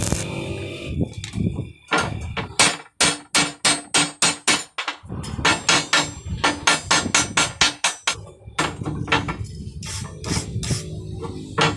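Hammer strikes in quick runs of about four blows a second, with short pauses between runs and a few scattered blows near the end.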